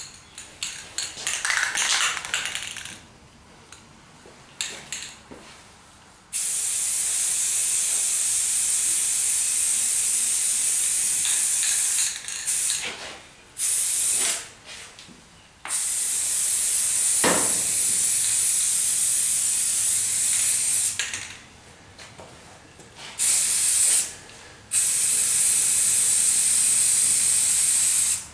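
Aerosol spray can of flat grey primer hissing in five bursts: three long ones of several seconds each and two short ones, with brief pauses between. The first few seconds hold scattered rattling clicks.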